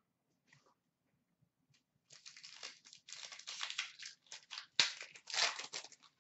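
Foil trading-card pack wrapper crinkling as it is torn open and handled, in a dense run of crackles, with one sharp snap a little before the end.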